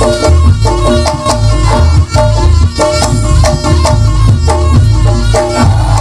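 Live Reog gamelan music: drums thumping a steady beat under many sharp percussion strikes and quick repeated pitched metal notes, played without a break.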